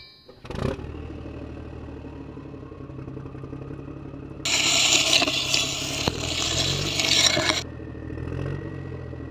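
Steady low engine hum of a toy construction machine working in soil, with a loud gritty scrape of soil from about four and a half to seven and a half seconds in.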